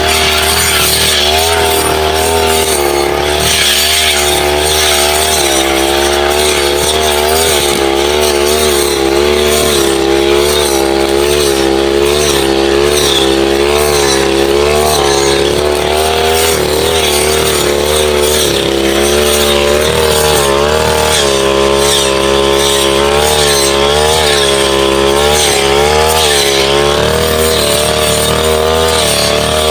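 Brush cutter engine running hard, its pitch dipping and rising again and again as the blade cuts through woody saplings and scrub.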